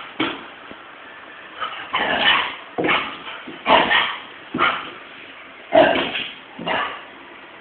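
Labrador retriever barking in short single woofs, about one a second, at its own reflection in a mirror, which it takes for another dog.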